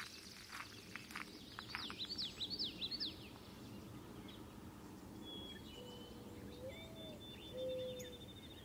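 Songbirds singing in the open: a quick run of falling chirps, then a rapid high trill near the end, with low drawn-out calls starting about six seconds in. Footsteps through grass are heard in the first second or so.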